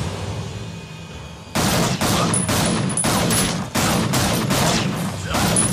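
Semi-automatic pistol firing a rapid string of shots, about four a second, starting about a second and a half in.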